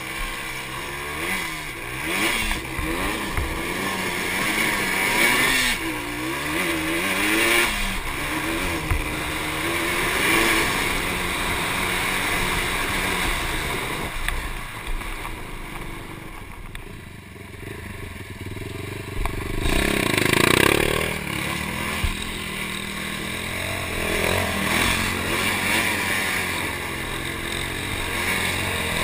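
Sport quad (ATV) engine revving up and down while riding, its pitch rising and falling in repeated waves. It eases off for a few seconds past the middle, then surges loudly again.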